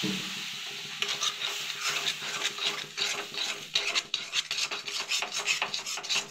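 Steel spatula stirring and scraping a besan and sugar mixture around a metal kadhai in quick, repeated strokes, about three a second. There is a steady hiss through the first second as freshly added water sizzles in the hot pan.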